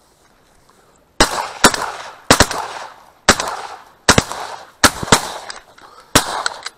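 Shotgun fire at a flight of ducks: about eight shots in quick, uneven succession over some five seconds, each dying away in a short rolling echo.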